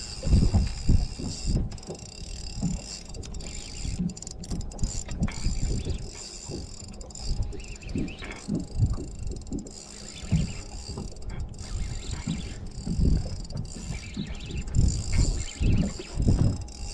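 Spinning reel being cranked to bring in a hooked fish, its gears whirring and clicking as the handle turns, over irregular low buffeting.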